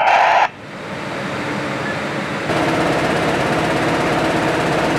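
Newspaper printing press and its conveyor running, a steady mechanical din that gets louder about two and a half seconds in. A louder sound cuts off half a second in.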